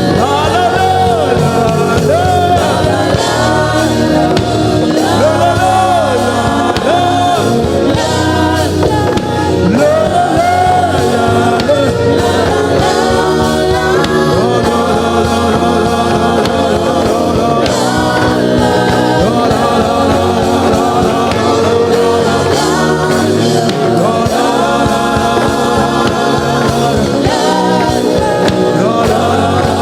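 Live gospel worship music: a choir and worship leader singing over a band with steady bass notes and percussion.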